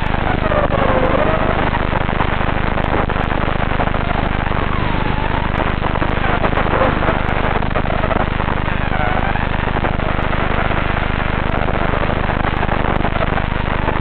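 FPV racing quadcopter's brushless motors and propellers running hard over heavy rushing noise, their whine gliding up and down in pitch as the throttle changes.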